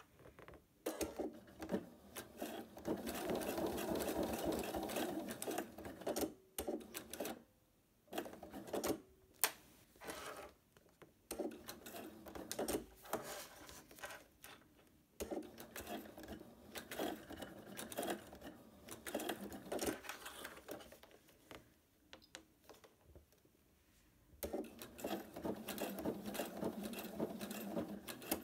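Pfaff Quilt Expression 4.2 sewing machine stitching a seam through a folded faux-leather strap, running in short stop-start spurts, with a pause of a few seconds near the end before a final run.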